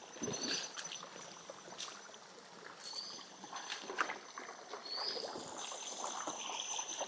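Shallow river water trickling, with scattered small splashes and knocks from wading through it. A short high chirp repeats about every two seconds over a faint steady high whine.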